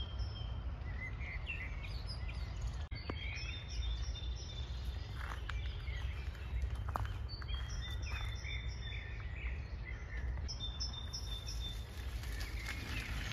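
Several songbirds singing, with many short chirps and high trills overlapping, over a steady low rumble.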